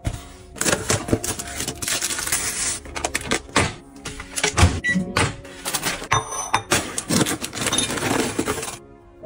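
Close handling sounds of microwave popcorn: a paper popcorn bag crinkling and rustling amid quick clicks and clatter, then popcorn spilling out of the paper bag into a ceramic bowl near the end. The sounds are dense and irregular and stop shortly before the end.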